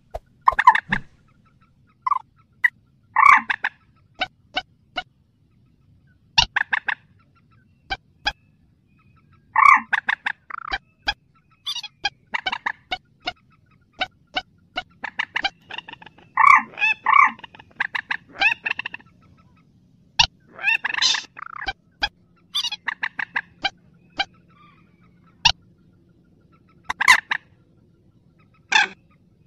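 Mandar sawah, a rice-field rail, calling over and over: loud short notes, some single and some in quick clusters, separated by pauses. It is a recording used as a lure call to draw wild rails in for trapping.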